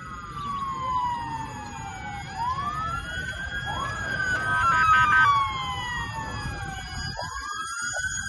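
Several emergency-vehicle sirens wailing at once, rising and falling in pitch and overlapping, with a short fast warbling passage about halfway through, over a low, steady background rumble.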